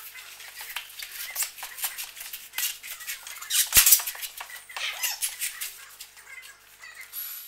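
Scraping, rustling and clicking of metal framing and foil-faced foam insulation board being handled and pressed into a frame, with one sharp knock just under four seconds in.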